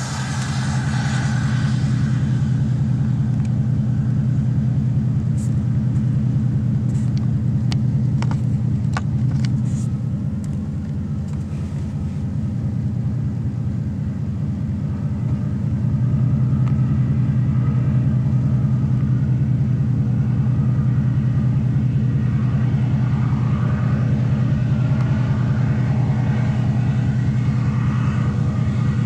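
A vehicle engine running steadily with a low, even pulse, and a few sharp clicks in the first half.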